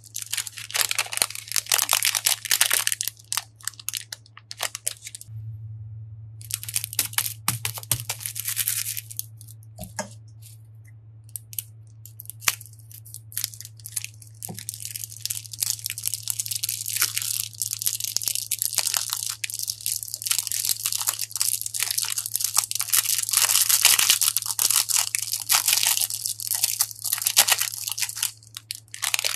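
Thin plastic bags crinkling and crackling in the hands as water beads are emptied out of them into a glass dish. The crackling is dense at first, thins out from about five to fifteen seconds in, then comes back dense.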